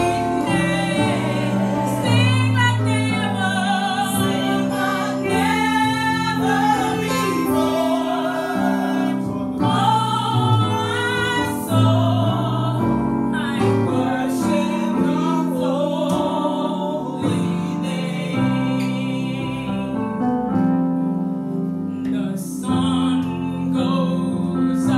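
Women singing a gospel worship song through microphones, backed by electronic keyboard with sustained bass notes.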